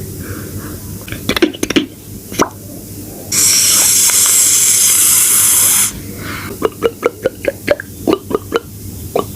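Beatboxer's mouth imitating cooking sounds: a few scattered clicks, then a loud hiss held for about two and a half seconds, like a sizzle or spray, then a quick run of short pops at about four a second.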